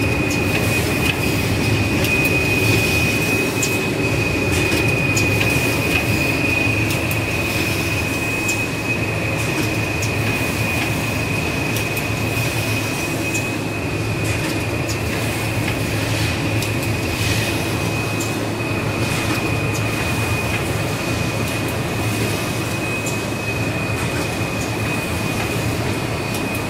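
Servo-driven automatic toilet roll and kitchen towel packing machine running: steady mechanical noise with a constant high whine and scattered light clicks.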